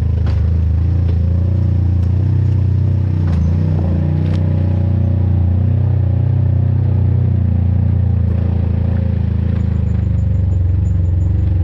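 Off-road vehicle's engine running steadily on a trail, with a few sharp knocks and clatters in the first half.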